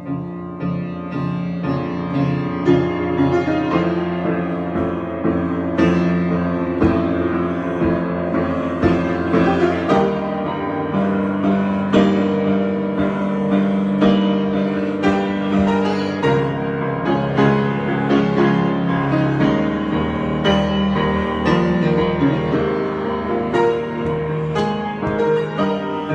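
Solo piano being improvised: held chords in the low and middle range change every couple of seconds, with single notes struck above them. It grows louder right at the start.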